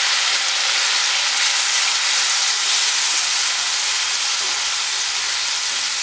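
Onion-tomato masala with tamarind water sizzling in a non-stick frying pan, stirred with a wooden spatula: a steady hiss.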